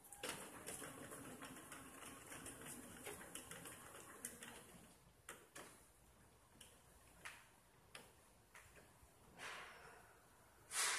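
Faint ticking and whirring from a small wheeled robot driving across the board. It thins out after a few seconds to a handful of scattered clicks, with a brief rustle near the end.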